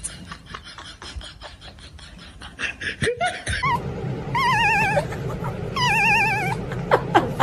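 A drawn-out, high warbling wail with a fast, even wobble in pitch, heard three times from about three seconds in, over a low steady hum. Before it, faint regular ticking.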